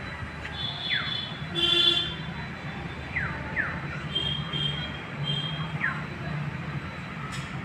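Outdoor street ambience: a steady low traffic rumble with repeated short, high chirps and whistles, and a brief louder blare about two seconds in.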